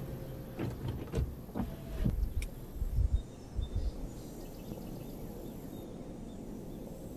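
Audi TT RS Roadster's power-operated fabric roof folding down: a run of clicks and knocks with low thumps through the first four seconds as the top folds and stows, then a steady low hiss.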